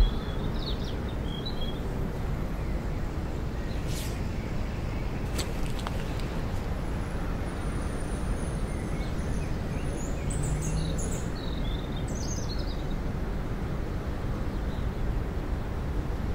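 Steady outdoor ambience with birds chirping now and then, and two short sharp clicks about a second and a half apart.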